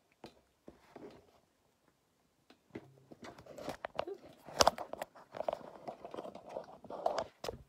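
Handling noise from a phone camera being moved: irregular knocks, clicks and rustling starting about three seconds in, with one sharp click near the middle.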